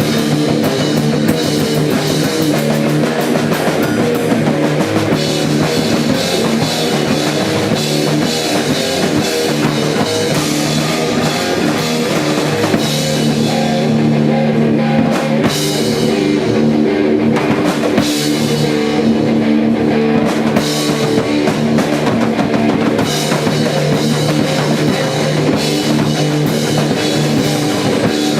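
Rock band playing a song, with a drum kit and guitar, loud and continuous.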